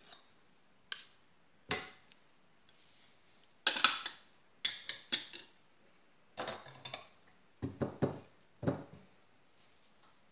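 Irregular knocks and clatters in a stainless steel mixing bowl as pieces of butter are dropped in and a spatula is handled against the bowl. The loudest cluster comes about four seconds in.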